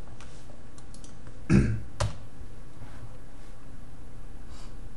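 A short low throat noise about a second and a half in, then a single sharp click just after, over a steady low hum from the recording setup.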